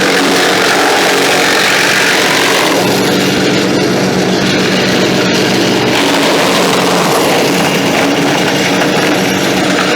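Wood chipper running with its engine steady and loud, and a shredding noise that swells and eases as material is fed through. The freshly replaced blades are drawing the material in by themselves.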